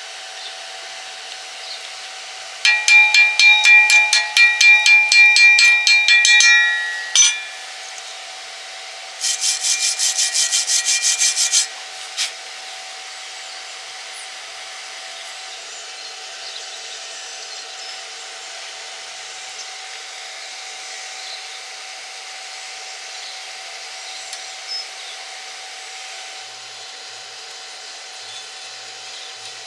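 Hand tool stroking rapidly against ringing steel, a rasping scrape in two spells: a longer one of about four seconds, then a shorter run of about four strokes a second. Between and after them, only a faint steady hum.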